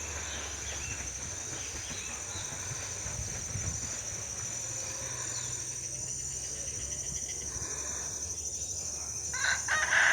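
A rooster crowing near the end, over a steady high-pitched buzz and faint bird chirps.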